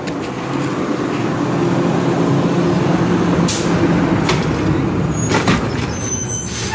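Garbage truck's engine running, growing louder in the first second and then holding a steady drone, with a few short hisses over it.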